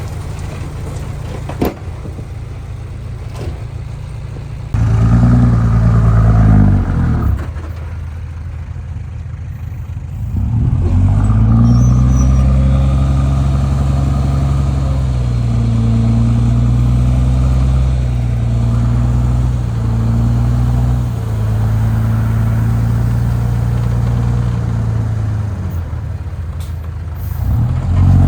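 Heavy diesel engine of earthmoving machinery, running steadily, then revving up sharply about five seconds in and dropping back. It revs up again and works hard under load for most of the rest, easing off shortly before the end.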